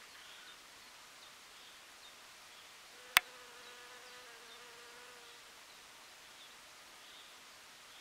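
A honeybee buzzing in flight for about two seconds, starting around three seconds in, its steady hum dropping slightly in pitch partway through. A single sharp click, the loudest sound, comes just as the buzz begins.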